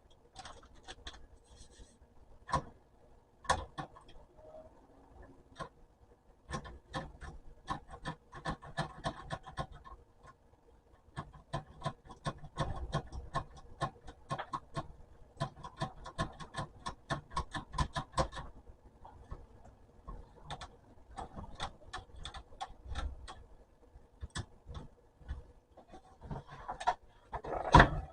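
Antique manual typewriter being worked by hand, its keys and typebars clacking in quick runs of strikes with scattered single clicks and pauses between.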